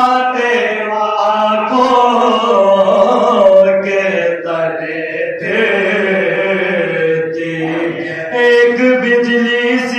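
Men's voices chanting an Urdu mourning elegy (soz, salam, marsiya) without instruments. A lead reciter sings long, drawn-out phrases, and a group of men join in on the held notes.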